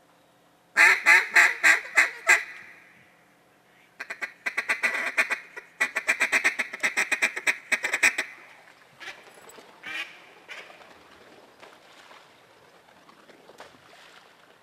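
Mallard duck call blown close by to bring in ducks. First comes a string of about seven loud, evenly spaced quacks, then two runs of fast chattering quacks, then a few softer single quacks near the end.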